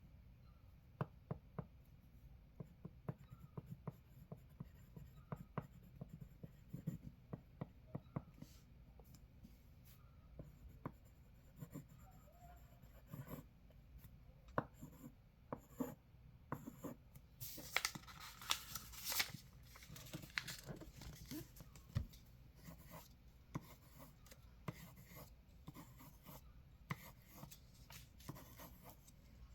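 Pencil writing and scribbling on paper: irregular short strokes and taps, with a denser run of scratchy scribbling about eighteen seconds in.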